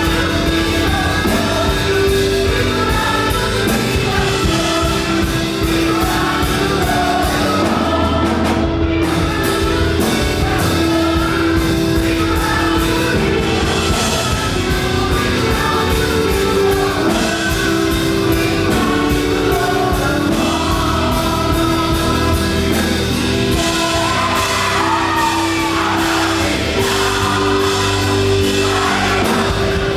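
Live up-tempo gospel worship music: a band with steady, driving percussion plays while a group of voices sings.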